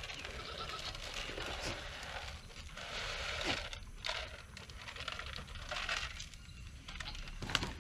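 Dry pig feed pellets poured from a plastic jug, rattling into a plastic feed pan in several uneven pours, with a sharp click near the end.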